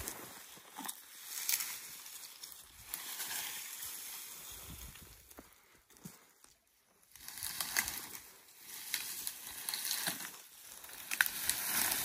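Cut pine branches being dragged and handled: needles rustling and twigs crackling and snapping in uneven bursts, with a short lull about halfway through.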